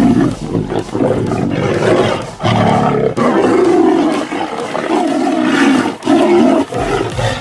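Two tigers fighting, roaring over and over in a run of loud calls up to about a second long, with short breaks between them.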